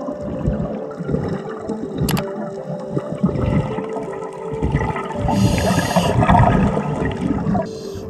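Underwater sound of scuba breathing through a regulator: irregular gurgling bursts of exhaled bubbles, with a short hiss a little past the middle, over a steady hum.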